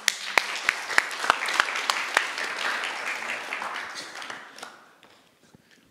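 Congregation applauding, with several louder single claps close by standing out in the first two seconds; the applause dies away over the last couple of seconds.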